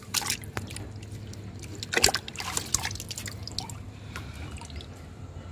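Hands swishing and rubbing a carrot in a metal basin of water: irregular splashes and trickles, the loudest about two seconds in, then quieter trickling as the carrot is lifted out dripping.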